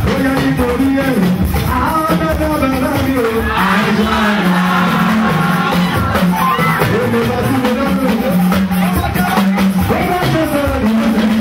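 Loud live music with voices singing over steady drums and shakers.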